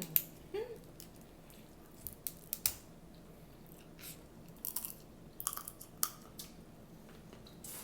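Close-up mukbang eating of seafood-boil shrimp and crab legs: chewing with scattered sharp clicks and snaps, a cluster of them about five seconds in.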